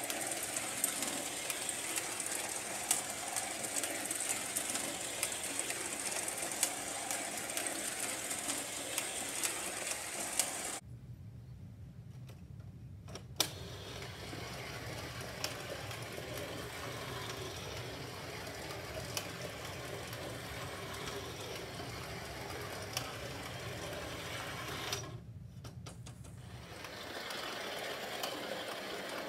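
Battery-powered Yonezawa space train toy running round its clear plastic tube track: the small electric motor and gears whir steadily, with scattered light clicks. About eleven seconds in the sound turns to a duller, lower hum.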